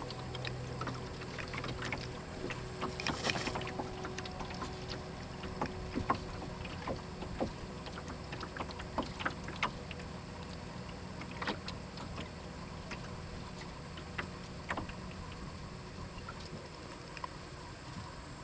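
Water lapping and trickling along the hull of a small wooden boat moving slowly, with scattered small ticks and knocks over a steady hiss. A faint low hum fades out about five seconds in.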